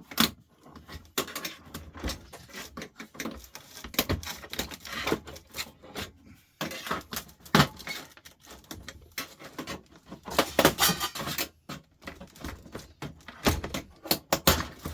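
Irregular clinks, clicks and rattles of hard parts being handled and worked loose as a lamp fixture is taken apart by hand.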